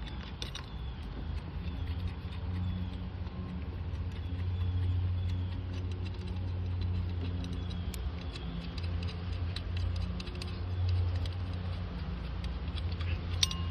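A steady low mechanical hum that swells and fades slowly, with scattered light metallic clicks and clinks of hand tools working on the engine.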